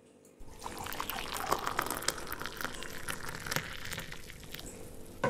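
Water poured from a bottle into a drinking glass: a steady splashing pour that starts about half a second in and stops sharply near the end.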